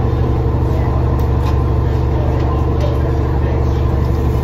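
Passenger riverboat's engine running with a steady low drone, heard on board.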